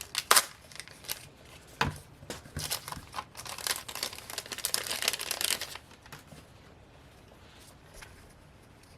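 Packaging crinkling and tearing as a pack of stickers is opened: a couple of sharp clicks in the first two seconds, then dense crinkling for about three seconds that dies down about six seconds in.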